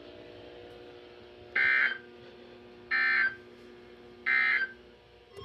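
EAS end-of-message signal: three short bursts of SAME digital data tones, each about half a second long and about 1.3 s apart, closing the alert. A faint steady hum lies underneath.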